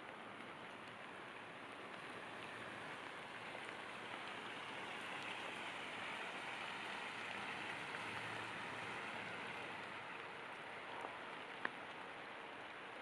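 Steady rain falling, mixed with the rushing water of a creek: an even hiss that grows louder through the middle. A single sharp tick near the end.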